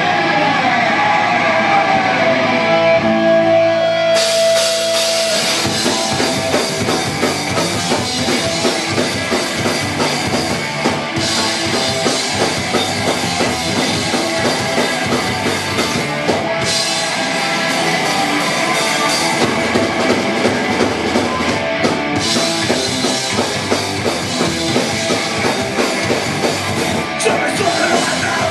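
Punk rock band playing live, recorded from within the crowd: distorted electric guitars, drum kit and shouted vocals. It opens on a held note and sliding tones before the full band crashes in about four seconds in.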